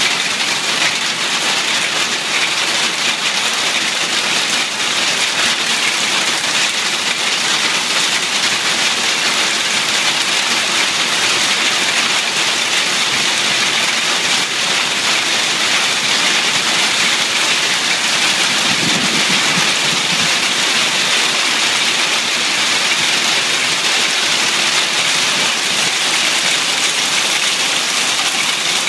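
A storm of hail and heavy rain pelting wet pavement and grass, heard as a dense, steady hiss that doesn't let up.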